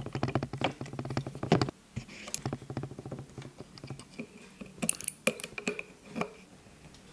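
Light clicks and taps of hands refitting a Xiaomi electric scooter's plastic brake lever and screwing its bolt in. Rapid clicking for the first second and a half, then scattered single clicks.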